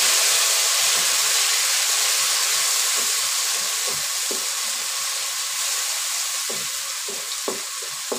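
Grated tomato sizzling in hot oil in a wok, the sizzle slowly fading, while a wooden spatula stirs and scrapes against the pan.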